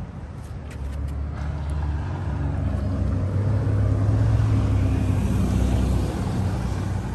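Low engine rumble of a motor vehicle, swelling to its loudest about four seconds in and then fading, as a vehicle passing by does.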